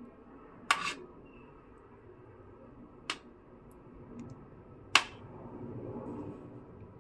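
A steel spoon clinking against the rim of a steel pot and a ceramic bowl three times while thick milk pudding is scooped out, the last clink the loudest, with soft scraping in the pot afterwards.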